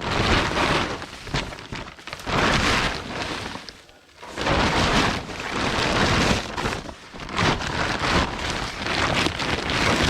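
A tarp cover being handled and pulled about, rustling and crinkling in several long swells.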